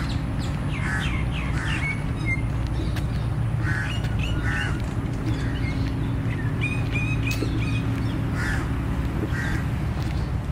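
A bird calling repeatedly, short harsh calls mostly in pairs, with a few higher chirps around the middle, over a steady low outdoor rumble.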